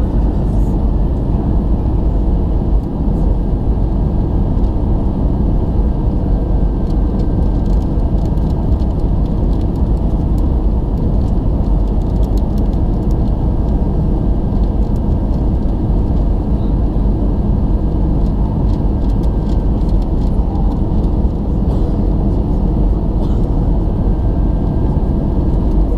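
Steady jet engine and airflow noise inside an Airbus A319 cabin on approach to landing, with a faint high steady tone coming and going above it.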